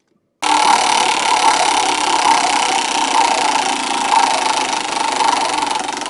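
Steady, dense whirring sound effect that starts after a brief silence and runs under a spinning prompt randomizer, easing slightly toward the end.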